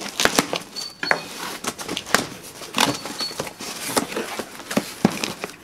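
A knife slitting the packing tape on a cardboard box, then the cardboard flaps pulled open, with irregular crackles and scrapes of cardboard.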